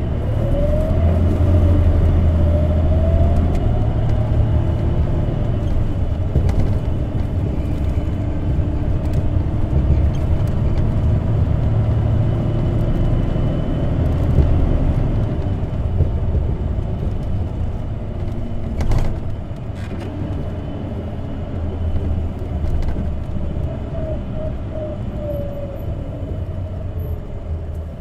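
Interior running sound of a CNG-powered Isuzu Erga city bus (PDG-LV234N2 modified) on the move: a heavy engine and drivetrain rumble. Over the first second or two a drivetrain whine rises in pitch, and a fainter whine returns later. There is a single sharp knock about two-thirds of the way through.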